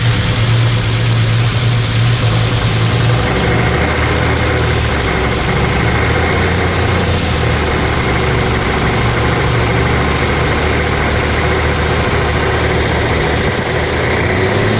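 Freshly rebuilt flathead V8 running at idle with the knock its owner is trying to trace; the noise is there with the clutch removed, so it does not come from the clutch. The idle settles a little lower about four seconds in.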